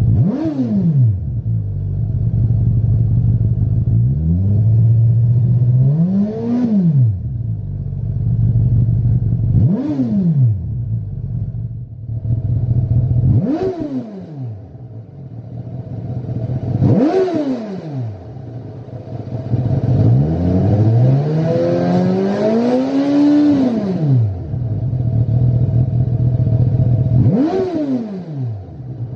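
Suzuki GSX-S1000's inline-four engine idling and revved by blips of the throttle, about six quick rises and falls in pitch plus one longer, slower rev about two-thirds through. It is heard through the stock exhaust at first and then through a Lextek RP1 aftermarket silencer.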